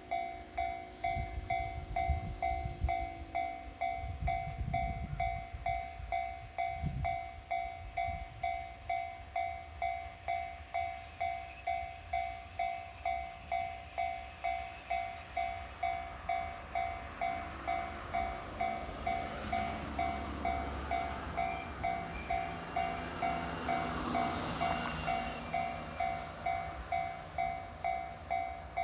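Japanese level-crossing warning bell ringing on and on, about one and a half strikes a second. Under it a train rumbles by on the rails: a heavy rumble with knocks in the first several seconds, then a second swelling rumble and hiss in the second half that peaks and fades.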